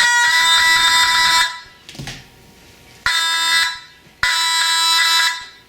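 Fire alarm horn sounding in loud blasts: the first runs on for about a second and a half, then after a pause two more follow, a short one and a longer one.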